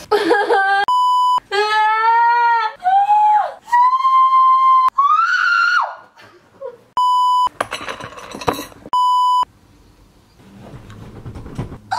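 A woman's high-pitched whining and wailing, with no words, broken by three short flat electronic bleeps: one about a second in and two more near seven and nine seconds in.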